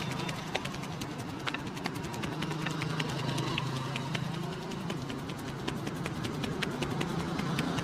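Head massage: quick, irregular sharp taps and clicks from the barber's hands on the head, several a second. Under them runs a steady low hum like an idling engine.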